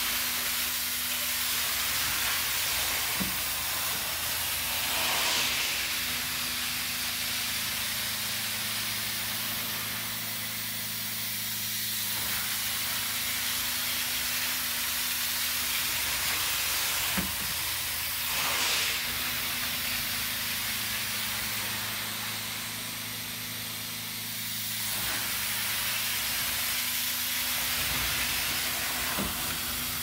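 Professional carpet-cleaning extraction tool working over carpet: a steady hiss of vacuum suction and water with a constant machine hum underneath. The rush swells and eases slowly every dozen seconds or so as the tool is worked back and forth.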